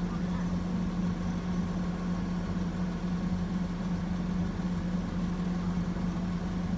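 Garbage truck engine idling steadily, a constant low hum.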